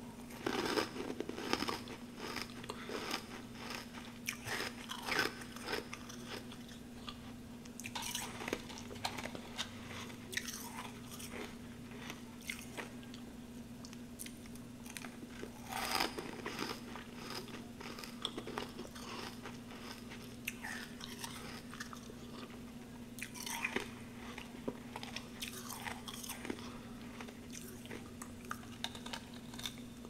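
Close-up crunching and chewing of humidifier frost chunks in the mouth: irregular crisp, crackly crunches, with louder bites about a second in, around the middle and later on. A steady low hum sits underneath.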